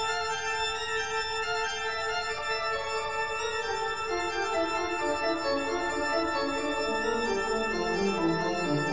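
Intro music of held, organ-like chords, joined about four seconds in by a lower line of notes that steps downward.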